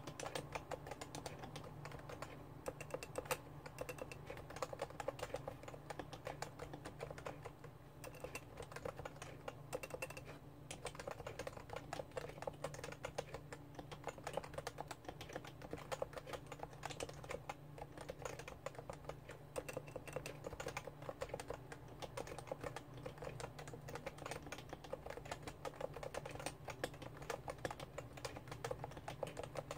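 Continuous typing on a Realforce R2 keyboard with Topre electrostatic capacitive switches: a rapid, steady stream of key strokes.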